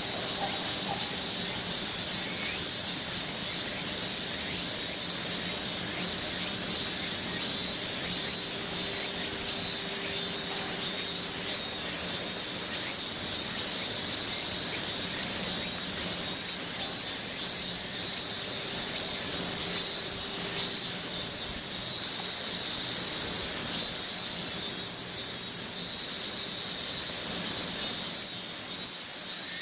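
A steady, dense chorus of cicadas, a high sizzling hiss with a fine pulsing texture, with a faint steady low hum underneath.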